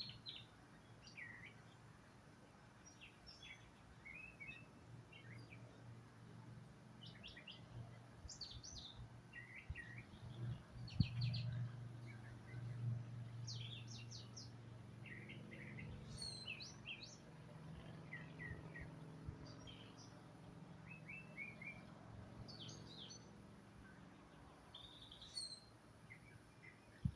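Several birds chirping and calling in short, high chirps and trills scattered throughout, over a low rumble that swells and fades in the middle.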